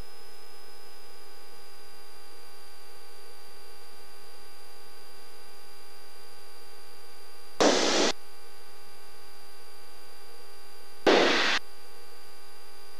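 Steady hiss and hum of a Cessna 172's headset intercom feed, carrying the engine and propeller drone in flight as a fixed set of steady tones. Two short bursts of radio static break in, about seven and a half and eleven seconds in.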